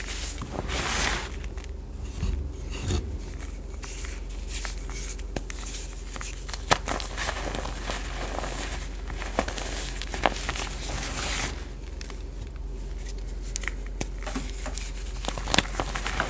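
Crumbled reformed gym chalk squeezed and worked between the hands: soft powdery scrunching and crunching, with a few sharper cracks now and then.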